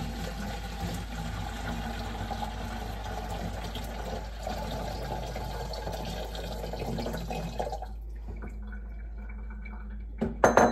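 Sugar water pouring from a glass measuring cup into the mouth of a plastic jug, a steady trickling fill that stops about eight seconds in. A few sharp knocks near the end.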